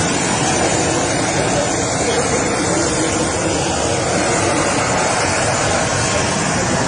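Steady, loud rushing hiss of a parked business jet running, with no change in pitch.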